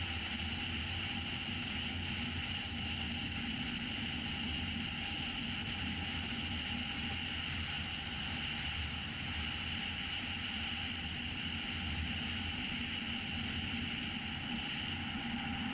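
Motorcycle engine running at a steady speed with wind and road noise, heard from a camera mounted on the motorcycle itself.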